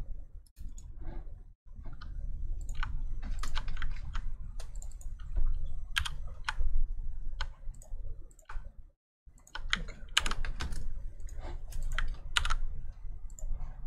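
Typing on a computer keyboard in irregular runs of sharp key clicks, with a few short pauses, over a low steady hum.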